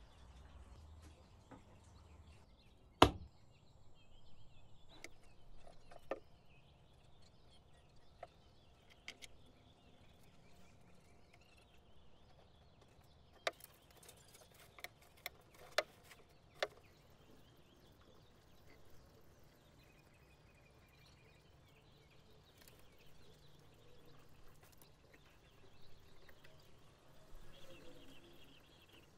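Sparse knocks and clicks of wooden pieces and tools being handled on a workbench. There is one sharp knock about three seconds in and a cluster of short clicks and taps a little before halfway.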